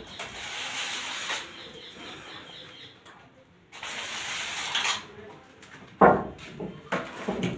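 Plaster of Paris being pressed and smeared by hand onto the wire mesh of a false-ceiling frame: a rough scraping hiss in two stretches, with a short pause between. A sharp knock comes about six seconds in, followed by a few smaller knocks.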